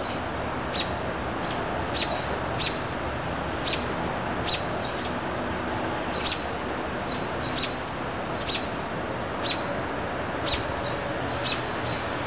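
A bird repeating a short, sharp chip call about once a second over a steady low rushing background.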